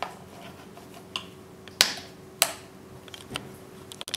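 Scattered light plastic clicks and taps as the power cord's strain reliever is pressed into its slot in an electric iron's plastic housing, with two sharper clicks a little under two and about two and a half seconds in.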